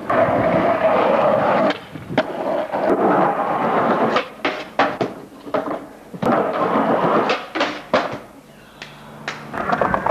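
Skateboard wheels rolling on rough asphalt, loud for the first couple of seconds, then quieter stretches broken by many sharp clacks of the board hitting the ground.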